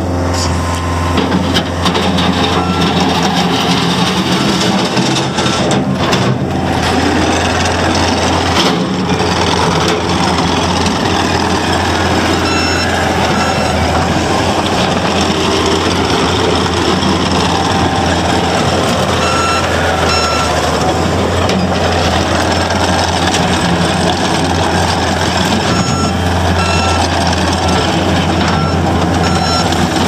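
Takeuchi TL240 compact track loader's diesel engine running steadily as the machine drives and turns, with its backup alarm beeping in several spells as it reverses.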